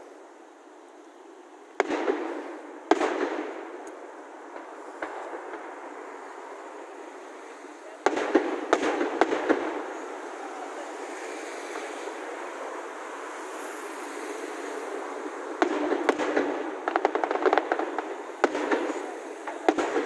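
Aerial fireworks shells bursting: two sharp bangs a couple of seconds in, another burst about eight seconds in with a run of crackling, and a rapid series of bangs and crackles in the last few seconds, each followed by a fading echo.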